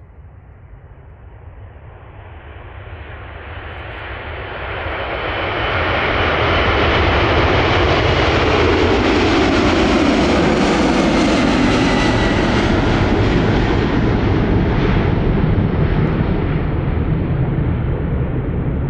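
Boeing 747 freighter's four jet engines at takeoff thrust through the roll, liftoff and climb-out. The sound builds steadily for about six seconds and stays very loud through the middle, with a whine that drops in pitch as the jet passes. It eases slightly near the end as the plane climbs away.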